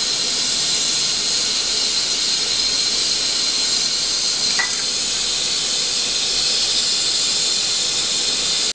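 Steady hiss of the gas burner on an LPG cylinder-top stove, heating a pan of cooking oil. There is a brief faint falling whistle about four and a half seconds in.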